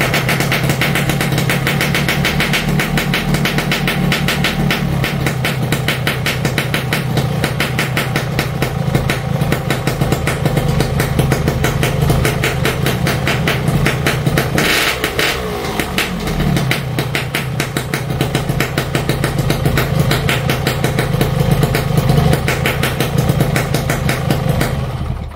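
Yamaha RX King's single-cylinder two-stroke engine idling steadily with its magneto rotor spinning uncovered, then cut off right at the end. It sounds smooth and quiet ('adem') now that the loose, wobbling magneto rotor has been re-riveted; before the repair the wobble made the engine sound rough.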